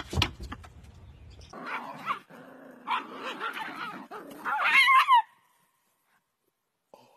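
A dog yipping and barking in a string of short excited calls, ending in a louder, high, wavering yelp that cuts off suddenly. A single knock comes just before, near the start.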